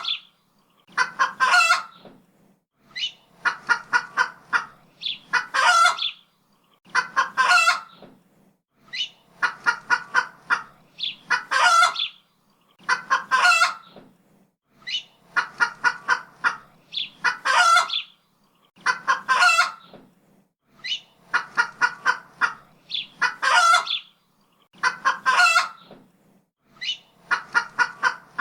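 Chicken clucking in short runs, each run ending in a longer, louder call, repeating about every two seconds.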